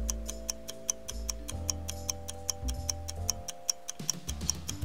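Countdown-timer sound effect: a clock ticking fast and evenly over background music with low, held notes.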